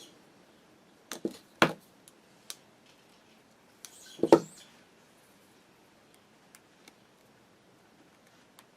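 A few short, sharp metallic clicks and taps as a small bent-wire staple is tried into the holes of a sewing machine's hand drive. The loudest tap, with a brief scrape, comes about four seconds in, followed by a few faint ticks.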